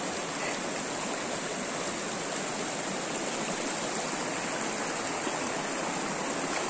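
Shallow, fast river rushing steadily over stones and rocks.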